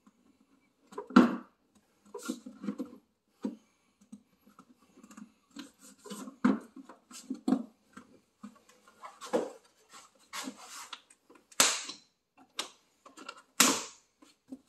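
Hands and tools reassembling coolant pipe connections: irregular clicks, taps and scrapes of parts being fitted and locked, with a loud knock about a second in and two sharper clatters near the end.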